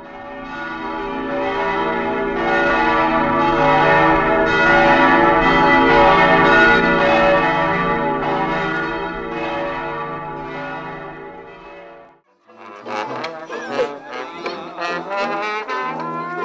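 Several bells ringing with long, steady tones that swell and then fade out over about twelve seconds, followed about a second later by a small brass band with trombone and tuba starting to play a lively tune.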